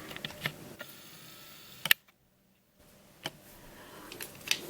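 Hands handling a plastic puzzle: four scattered sharp clicks and knocks, the loudest about two seconds in, then a brief dropout of complete silence.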